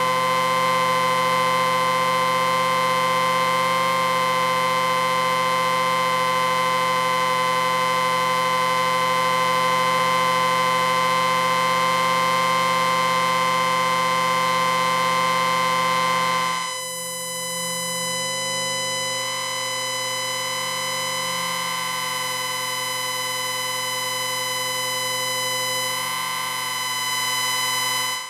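Electronic ringing whine of an audio amplifier: several steady tones held together without a break. About two-thirds of the way through it switches suddenly to a different, slightly quieter set of tones.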